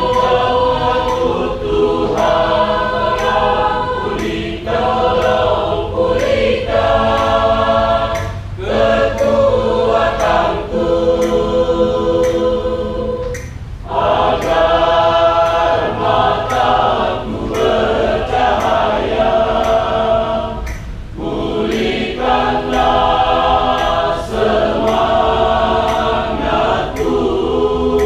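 Choir singing a Christian song in long sustained phrases, with brief breaks between them.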